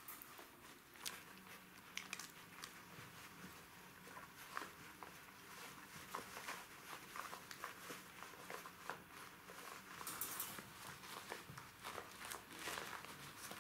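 Jack Russell Terrier puppies scuffling over a rubber chew toy: faint, irregular clicks, scrapes and rustles of paws, claws and teeth on a quilted pad.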